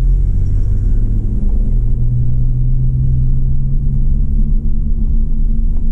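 Car engine running steadily under way, with heavy low road rumble, heard from inside the car; a steady low engine hum settles in about a second and a half in.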